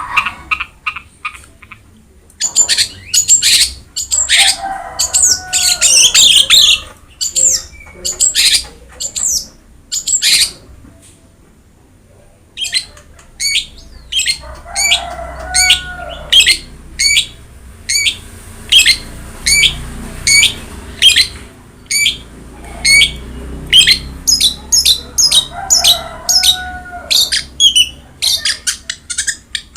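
Long-tailed shrike (cendet) singing loudly in long runs of rapid, sharp, high notes, with short pauses about two seconds in and around eleven to twelve seconds in. A lower call recurs roughly every ten seconds.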